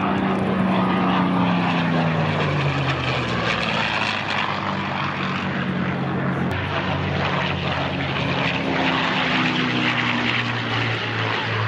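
P-51 Mustang's Merlin V-12 engine and propeller on a fly-by. The drone drops in pitch over the first few seconds as the fighter passes, then carries on as a steady drone.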